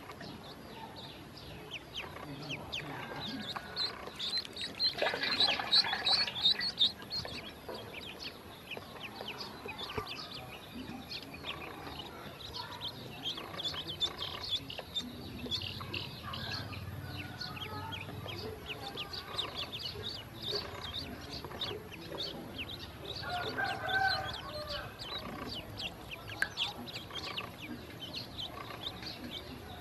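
Ducklings peeping: a constant stream of short, high chirps. There is a louder burst of calls about five seconds in and a lower, fuller call near the end of the second third.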